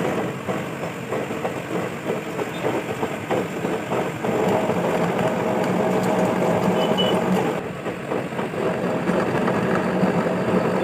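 A machine running steadily, with a low, even hum and a higher tone held over a rattly background noise.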